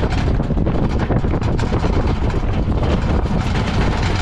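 Wooden racing carts rolling over the road surface just after the start, making a steady rattling rumble, with wind buffeting the microphone.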